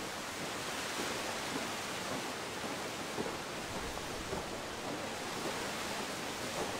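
A steady rushing hiss, with faint crunches of a squad of soldiers' boots marching on a gravel drive, growing more frequent toward the end.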